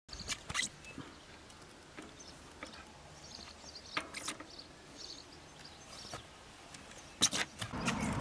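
A few sharp clicks and knocks from a mountain bike being straddled and shuffled along on grass, over quiet open-air background with faint high chirps like small birds. Near the end a louder, steady low rushing noise comes in.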